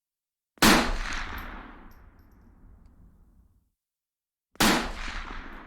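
Two single rifle shots about four seconds apart, each a sharp crack followed by a long echoing tail that dies away over a couple of seconds.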